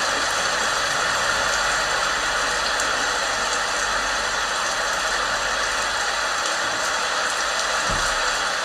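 Heavy rain falling steadily, a dense even hiss, with a faint low rumble underneath that fades out about six seconds in and a brief low thump near the end.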